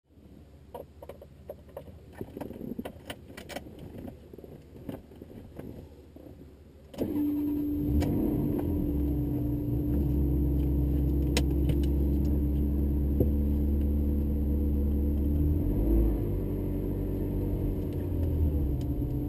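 Light clicks and rustling, then about seven seconds in the Ferrari 360 Modena's 3.6-litre mid-mounted V8 starts and settles into a steady idle, heard from inside the cabin.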